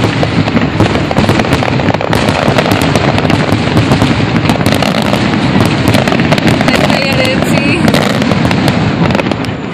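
Fireworks finale: a dense, unbroken barrage of aerial shell bursts and crackling, loud throughout.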